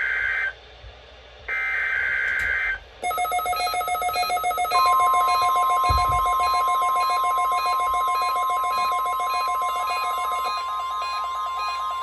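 EAS test signal: the last two SAME header data bursts screech briefly, one ending half a second in and another about a second long. About 3 s in, a pulsing, ringing alert tone starts, and from about 5 s in the steady single-pitched 1050 Hz NOAA Weather Radio warning alarm tone sounds over it.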